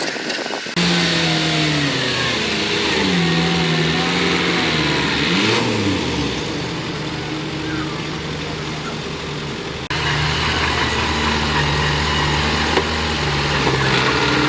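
Heavy machinery diesel engine running, its pitch dropping, then rising and falling again about halfway through, then holding steady. The sound changes abruptly about a second in and again about ten seconds in.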